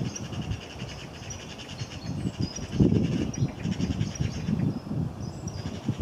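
Small songbirds chirping and trilling with many short, high notes, over a low, irregular rumble.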